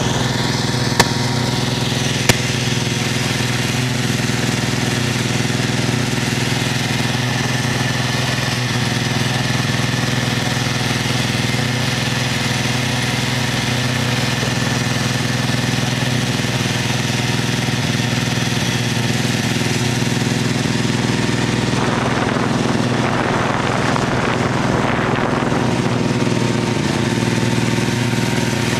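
Snowmobile engine running at a steady cruising speed, heard from a sled towed behind it. There are two sharp knocks about a second and two seconds in, and a rougher hiss joins for a few seconds near the end.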